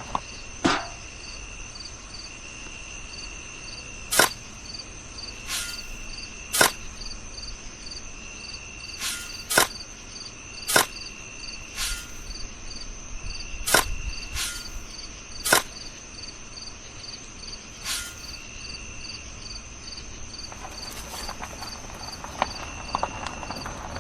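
Insects chirping steadily in a fast, even pulse, with about a dozen sharp taps or knocks at irregular intervals over it.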